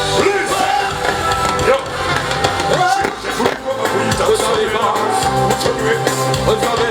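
Loud music with a singing voice over instrumental backing.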